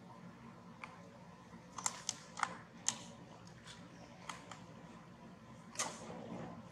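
A scattered run of small sharp clicks and ticks, about ten in all, bunched in the middle, with a short scuff near the end over a faint steady background.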